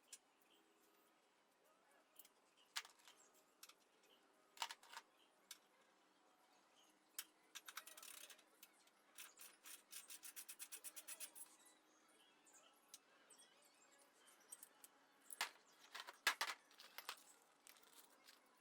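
Faint scattered clicks and taps of hand tools at work on a motorcycle, with a quick even run of about eight clicks a second near the middle and a few louder clicks after it.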